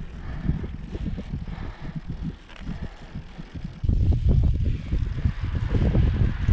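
Wind buffeting the action camera's microphone while riding a road bike, a gusty low rumble that gets louder about four seconds in.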